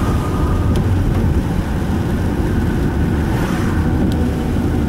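Steady low rumble of a car driving on a wet road in heavy rain, heard from inside the cabin, with two faint clicks.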